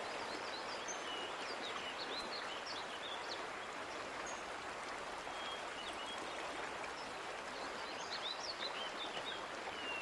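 Steady rush of a shallow stream running over rocks, with small birds chirping: one spell of quick high chirps in the first three seconds and another about eight seconds in.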